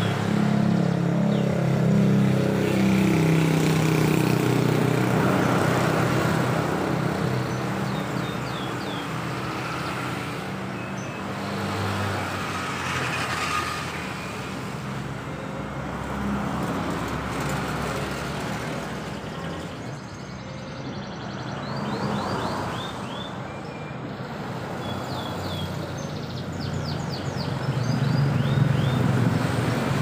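A motor vehicle's engine runs with a low hum amid outdoor traffic noise, loudest at the start and again near the end. Over it, a small caged songbird gives several short runs of quick, high chirps, about a third of the way in and again in the last third.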